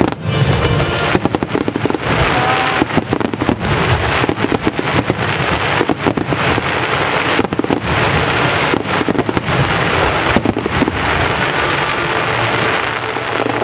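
Aerial firework shells bursting in a rapid barrage: many loud bangs close together, running into near-continuous crackling.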